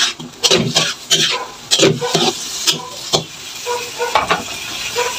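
A spatula scraping and stirring sliced cucumber in an aluminium wok, in about a dozen quick, irregular strokes over a steady sizzle from the pan.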